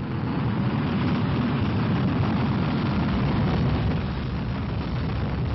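Vanguard rocket's engine igniting on the launch pad: a loud, steady low rumble that eases slightly about four seconds in.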